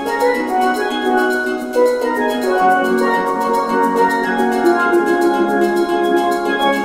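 Background music: a melody of pitched notes over a quick, steady percussion beat.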